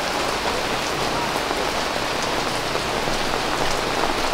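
Heavy rain falling steadily, a dense even hiss of drops striking the ground and surroundings.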